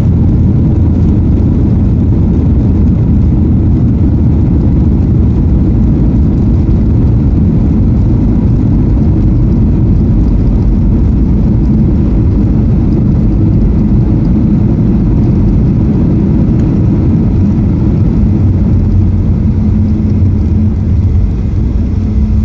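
Cabin noise of a Boeing 737-800 decelerating on the runway just after touchdown: a loud, steady rumble of its CFM56 engines and wheels. Near the end the rumble eases a little and a steady hum comes through as the jet slows.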